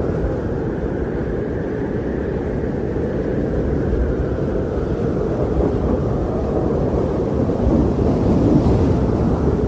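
Steady low rushing of wind, with no distinct events, swelling slightly near the end.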